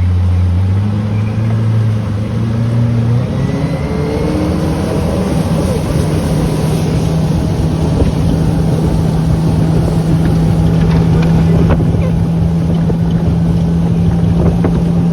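Motorboat engine speeding up, its pitch climbing in steps over the first few seconds, then running steadily at cruising speed.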